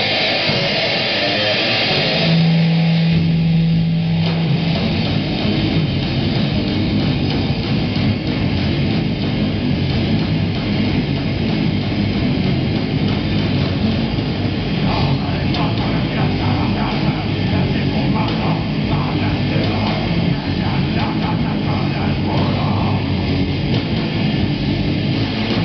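Heavy metal band playing live: distorted electric guitars, electric bass and drum kit through amplifiers, loud and dense throughout, with a low note held for about two seconds near the start.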